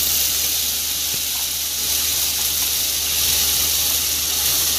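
Onion, garlic and ginger paste frying in hot oil in a kadai: a steady sizzling hiss.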